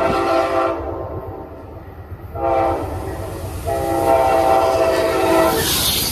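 Amtrak P42 diesel locomotive's air horn sounding the grade-crossing signal. A long blast ends about a second in, then comes a short blast and a final long blast, over the low rumble of the approaching train. Near the end there is a loud rush of wheel and air noise as the locomotive passes close by.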